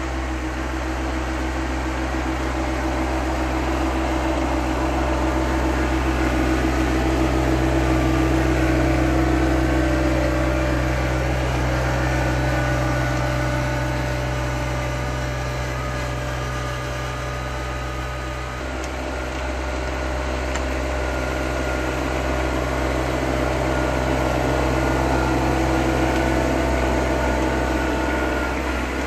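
Yanmar SA424 compact tractor's three-cylinder diesel engine running steadily under load as it pushes snow with its front loader bucket. The sound swells and eases as the tractor moves about, dipping briefly about two-thirds of the way through.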